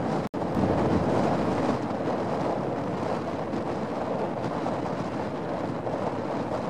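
Strong wind buffeting the microphone over choppy lake water, a steady rushing noise with a faint steady hum beneath it. The sound cuts out for an instant just after the start.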